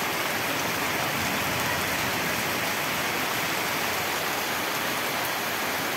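Heavy rain falling steadily on tree leaves, a dense, even patter.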